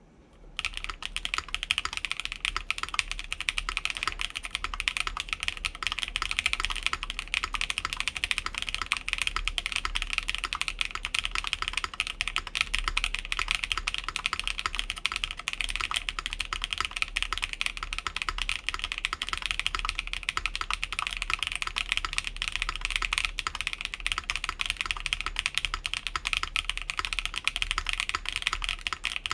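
Continuous fast typing on an Atelier Magnus Slate Zero mechanical keyboard with a full aluminium plate, gasket mount, plate and case foam, lubed Keygeek Blue Cheese v2 switches and DSA keycaps: a steady stream of key clacks that starts about half a second in.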